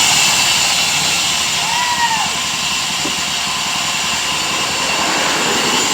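Homemade mobile sawmill running steadily, its engine and machinery giving a constant loud noise with a high hiss.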